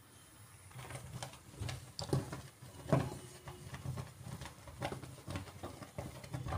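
Thick milk and coconut paste boiling in a kadhai, bubbling with irregular pops and crackles that start about a second in.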